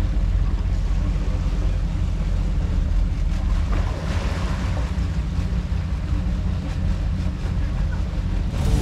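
Boat engines running with a steady low rumble while under way, with wind buffeting the microphone.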